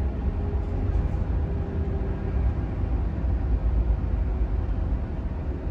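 Scania truck's diesel engine and road noise heard from inside the cab while driving at low city speed, a steady rumble.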